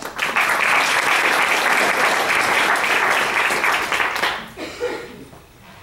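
Audience applauding, starting right away and dying out about four seconds in.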